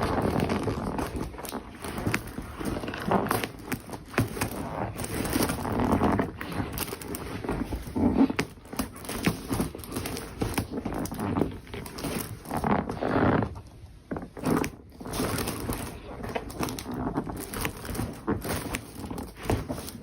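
Rubber boots squeaking and rubbing in uneven bursts, mixed with scattered short clicks and knocks.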